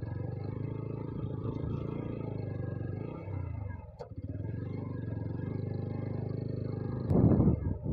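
Motorcycle engine running steadily at low speed, with a brief dip and a click about four seconds in. A louder rush of noise takes over near the end.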